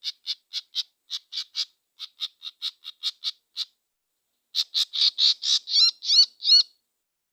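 A small bird caught on birdlime calling over and over: short, sharp calls about four a second, a pause a little before halfway, then louder calls that sweep up and down in pitch.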